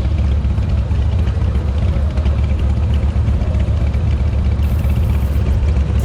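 Harley-Davidson Shovelhead V-twin motorcycle engine running steadily on the move, a loud continuous low rumble.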